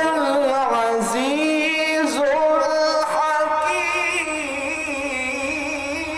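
A man reciting the Quran in the melodic tajweed style, his voice gliding through ornamented turns and then holding one long note through the second half.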